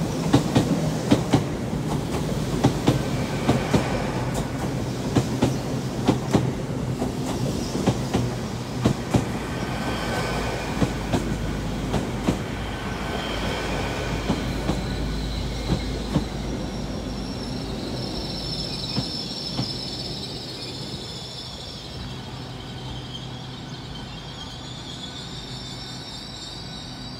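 A nine-coach GWR Class 800 Intercity Express Train rolls into the station with wheels clicking over rail joints. Flange squeal rises in the second half as it slows, and the sound gets gradually quieter.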